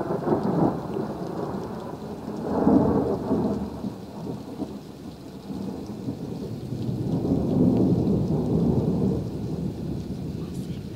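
A long rolling peal of thunder that swells and fades several times: loudest at the start, surging again a couple of seconds in, and building once more past the middle before it dies away.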